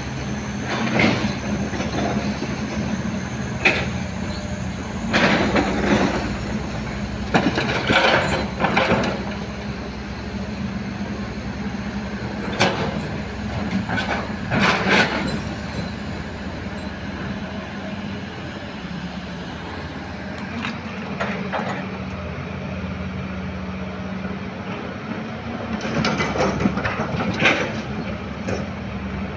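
Excavator and dump truck loading soil: heavy diesel engines running steadily, with short clanks and scraping bursts every few seconds from the bucket and the load. The bursts stop for a calmer stretch in the middle.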